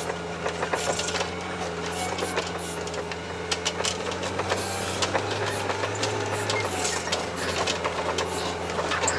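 Tracked all-terrain vehicle driving through deep snow in third gear: a steady low engine drone with a constant irregular clatter of clicks and knocks from the running gear.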